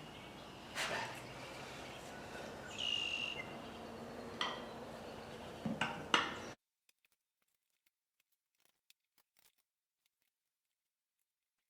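Faint scattered clinks and knocks of hand tools working a golf cart tire onto its rim, with a brief high squeak about three seconds in. The sound then cuts out to dead silence about six and a half seconds in.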